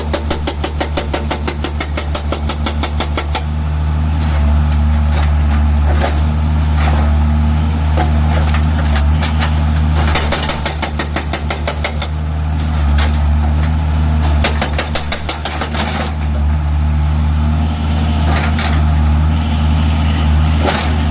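Tata mini excavator's diesel engine running steadily, pulsing evenly at first, then working harder and louder from about three and a half seconds in. A few short knocks come through over the engine.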